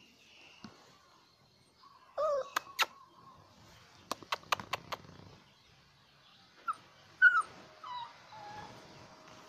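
A young puppy giving a few short whimpering yelps: one about two seconds in and a louder pair near the seven-second mark, with a quick run of about five sharp clicks in between.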